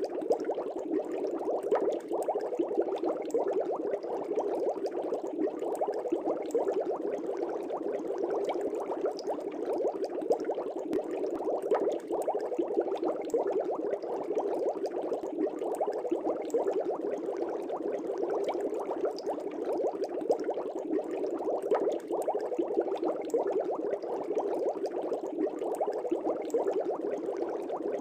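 Air bubbles rising and breaking in a fish tank: a steady, dense burble of many small pops.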